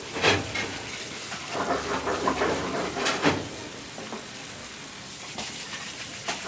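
Water spraying from a sink sprayer head onto seafood while a stiff plastic brush scrubs it, with scraping strokes and a few knocks. From about four seconds in the strokes stop and only the water spray hisses on.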